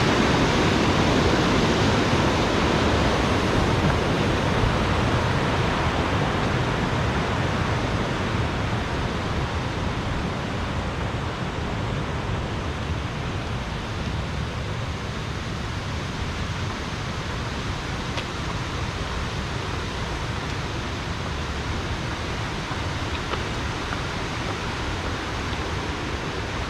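Steady rush of flowing stream water, gradually growing quieter over the first ten seconds or so, then holding level.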